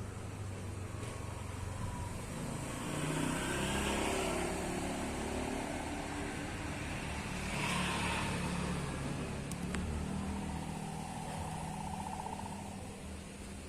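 Motor vehicle engines running and passing, a low hum that swells twice, about four and about eight seconds in.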